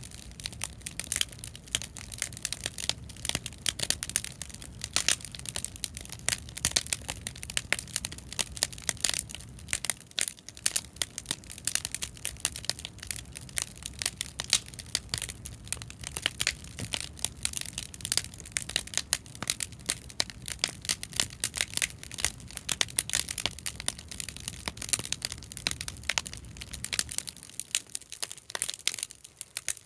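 Scrap-lumber bonfire stacked teepee-style, crackling and popping densely and irregularly as it burns. A low rumble runs beneath the crackle, dropping away briefly about a third of the way in and again near the end.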